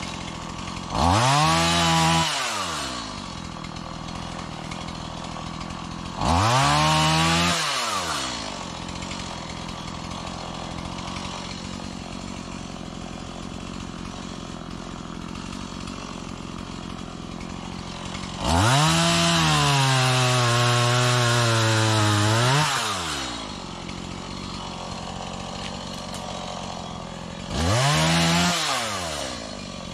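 Small Stihl two-stroke chainsaw idling between four bursts of throttle: two short revs, then a longer cut of about four seconds with the engine pitch sagging a little under load, then another short rev near the end.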